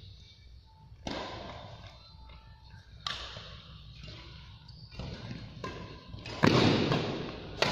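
Badminton rackets striking a shuttlecock in a rally, four sharp hits echoing in a large hall: about a second in, about three seconds in, then two close together near the end, the first of those the loudest.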